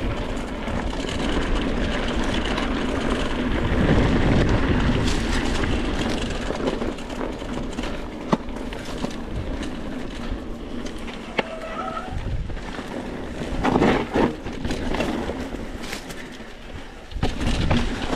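Mountain bike rolling fast down a dirt singletrack: a steady rush of tyre noise over dirt and loose stones, with frequent knocks and rattles from the bike over bumps.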